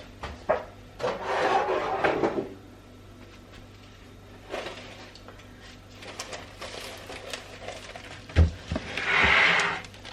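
Household items being moved about in a pantry cupboard: sliding and rubbing noises, a sharp knock about eight seconds in, then a longer scrape near the end.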